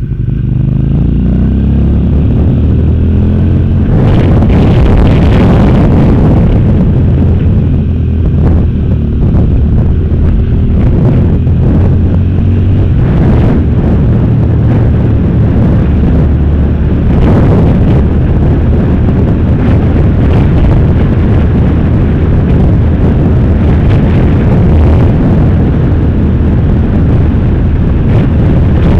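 Sport motorcycle engine running under way, rising in pitch as it accelerates near the start, with wind rushing over the microphone.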